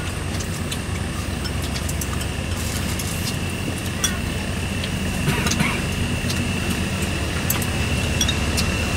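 Engine running steadily with a low hum, with a few faint clicks over it.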